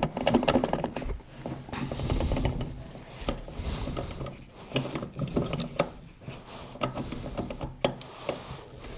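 Steel transmission parts in an open 1995 Honda XR250R crankcase half clicking and scraping as the shift-fork pin is worked through the shift forks. A quick run of ratchet-like ticks comes just after the start, then scattered clicks and knocks.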